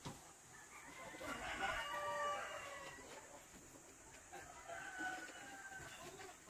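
A rooster crowing once, a call of about two seconds starting about a second in, with a fainter call a little later.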